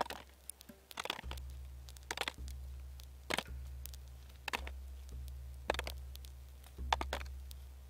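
Roasted black walnuts dropped one at a time into a birch bark container: about seven short, sharp knocks, roughly one a second.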